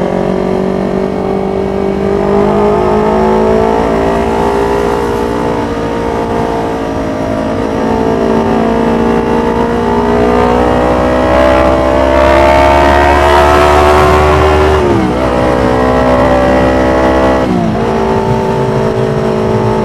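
Yamaha MT-25's 250 cc parallel-twin engine pulling steadily under acceleration, its pitch climbing slowly, then falling sharply twice near the end. Wind noise sits over the engine.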